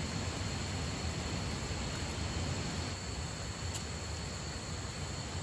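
Steady rush of flowing river water, an even hiss with no breaks, with a faint high steady tone above it.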